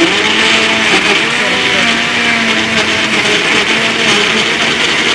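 Countertop electric blender running at full speed, churning chunks of papaya and pineapple with water into a fruit drink, a loud steady whirring that switches on abruptly just before.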